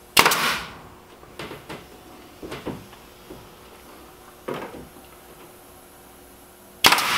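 Pneumatic fastener gun firing into the plywood wrap panel: a sharp shot just after the start and another near the end, each with a brief hiss, and lighter knocks in between. Its line pressure is running a little low: not quite enough air to drive the fastener fully.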